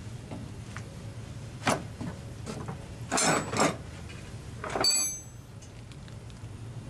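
Steel shaft and ball bearing of a dismantled rotary screw compressor being handled by gloved hands: a few knocks and scrapes of metal, the loudest about five seconds in with a short high metallic ring. A steady low hum runs underneath.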